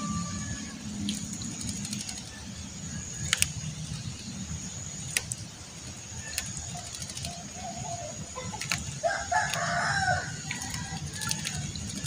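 Javan myna bathing in a water tub, with scattered sharp splashes and flicks of water. A rooster crows once in the background about nine seconds in.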